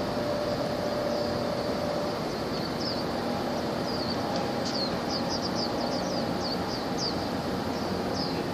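Steady rumble of a passing container ship and a small harbour boat close offshore, with a faint engine hum in it. From about two seconds in, a small bird chirps over it in quick, short, falling calls, several a second.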